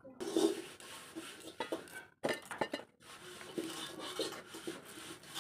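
Kitchen knife chopping spring onion inside a small steel bowl held in the hand: irregular taps and clinks of the blade on the metal.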